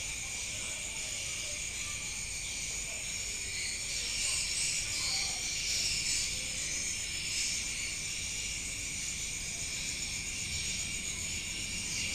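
Steady high-pitched chirring of insects.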